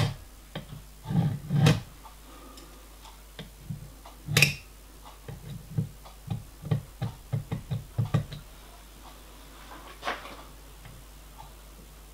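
Hand tools handled at a metalwork bench vise while a small steel block is marked out with a caliper and scriber: scattered light knocks and clicks. The sharpest click comes about four seconds in, then a quick run of taps, and one more knock near the end.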